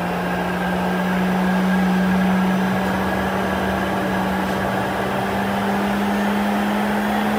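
Makita industrial vacuum cleaner running, its motor's hum rising slowly in pitch as the suction is turned up.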